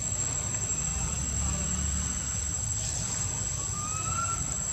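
Steady high-pitched drone of insects, with a faint short rising whistle about four seconds in, the whistle-like coo a young long-tailed macaque gives when begging to nurse.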